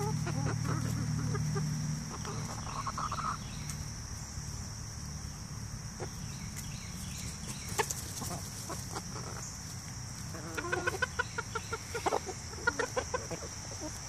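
A flock of chickens clucking while they feed, with quick runs of clucks near the end. A steady high-pitched whine runs in the background.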